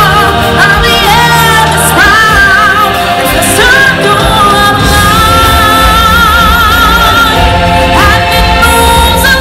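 Stage-show music: singers holding long notes with vibrato over a band, loud, with a new sung phrase starting near the end.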